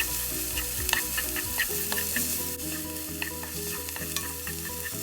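Onions and garlic sizzling in hot olive oil in a pan, with a utensil clicking and scraping against the pan every so often as they are stirred.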